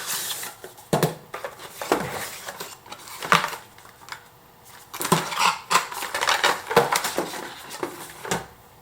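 A cardboard product box being opened and its packaging handled: an irregular run of knocks, scrapes and rustles, with a quieter stretch in the middle.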